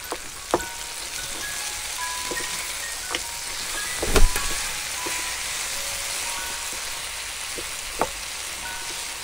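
Oxtail pieces frying in a nonstick pan with a steady sizzle. A wooden spoon stirs them, knocking against the pan a few times, loudest about four seconds in. Soft mallet-percussion background music plays under it.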